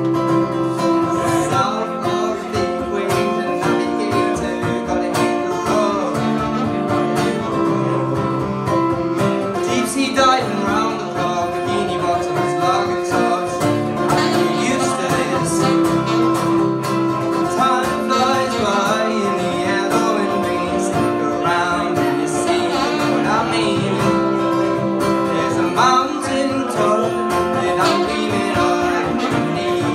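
Live pop-song music with guitar: an instrumental stretch between the chorus and the next verse, with no lyrics sung.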